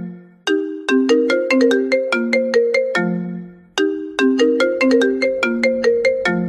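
Short ringtone-style melody of quick plucked notes, played twice in a loop, each run ending on a held low note.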